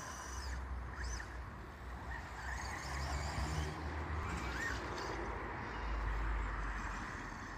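HPI Savage XS Flux brushless electric RC monster truck driving across grass, its motor whine rising and falling with the throttle in short spurts, over a low wind rumble on the microphone.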